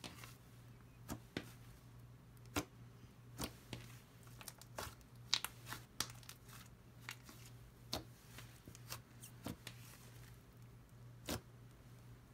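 Yellow butter slime being stretched and pressed by hand, giving faint, irregular little clicks and pops, over a steady low hum.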